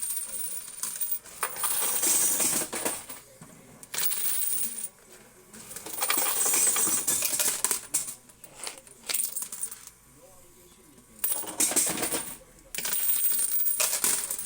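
Metal quarters clattering and jingling from a coin-pusher game, in repeated spurts of a second or two with short pauses between.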